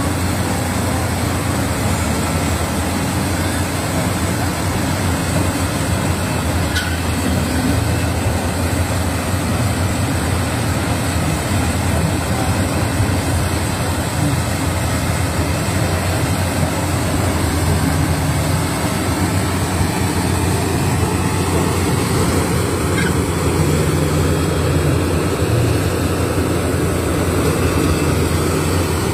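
Rice combine harvester running steadily: a continuous low engine hum under an even mechanical din.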